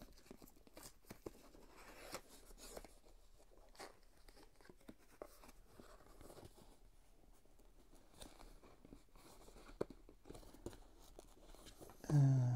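A camera's retail packaging being handled as the cardboard sleeve is worked off a clear plastic box: soft scattered rustles and scrapes with small clicks. A brief voice sound near the end.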